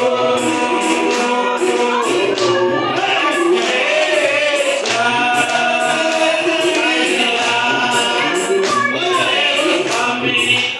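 A congregation of men and women singing a spiritual together over a steady beat of sharp percussive strikes.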